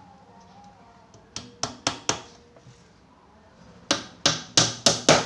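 Hammer driving nails through a plywood side panel into the box's wooden frame: four quick strikes about a second and a half in, then five more from about four seconds in.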